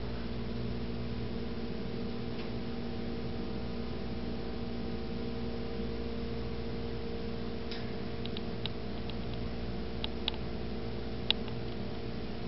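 A steady electrical hum, with a scattering of short sharp clicks in the second half, the loudest about eleven seconds in.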